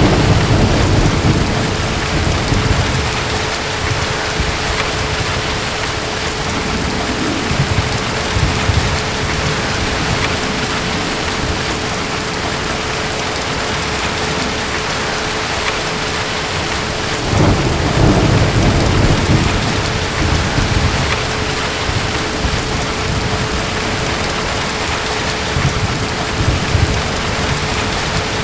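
Steady rain with deep rolls of thunder: one rumble in the first few seconds and another a little past the middle, with fainter rumbles between.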